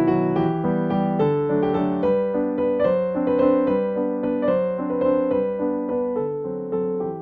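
Background music: a gentle solo piano playing a steady stream of notes.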